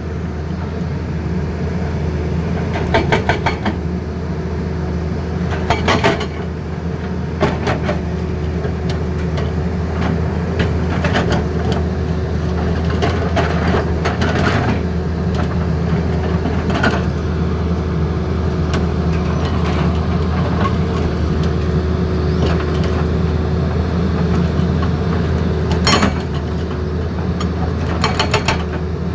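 Tata Hitachi excavator's diesel engine running steadily under load, with short bursts of rapid hammering from its hydraulic breaker several times, around three seconds in, at six seconds, and again near the end.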